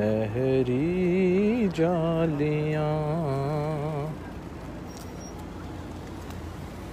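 A man singing a devotional Urdu naat unaccompanied, a slow melodic line with long held, wavering notes, breaking off about four seconds in. After that only a steady low street hum remains.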